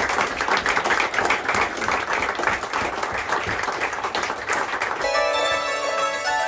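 Audience applauding with dense clapping. About five seconds in, it cuts abruptly to two hammered dulcimers (Hackbretts) playing together, their struck strings ringing on in sustained notes.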